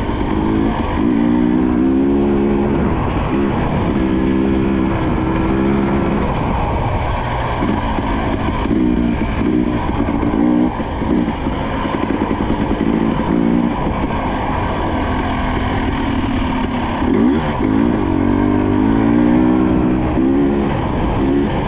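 Husqvarna TE300i single-cylinder two-stroke dirt bike engine being ridden hard, revving up and dropping back again and again as the throttle opens and closes, under a steady rushing noise.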